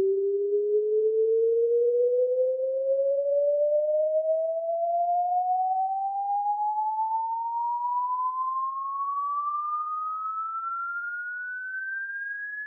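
A loudspeaker playing a pure sine-tone test sweep that rises slowly and evenly in pitch, from a mid tone to a high whistle, growing a little quieter as it climbs. The sweep is the test signal used to map how the speaker's sound radiates.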